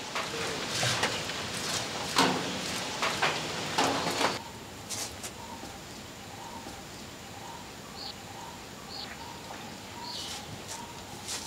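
A metal spoon scraping and knocking against a clay pot in several quick strokes while a fried mixture is stirred, for about the first four seconds. After that, faint bird chirps repeat in the background.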